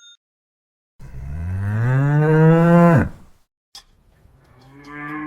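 Two long, low animal calls: the first swells and rises slightly in pitch, then drops off sharply; a second, quieter call begins near the end.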